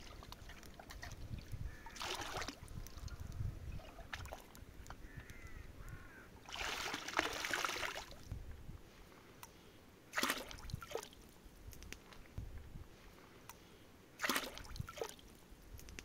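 Water splashing and pouring as a steel pot is dipped into a shallow stream and tipped out, rinsing raw chicken. There are four short splashes. The longest and loudest comes about halfway through and lasts over a second.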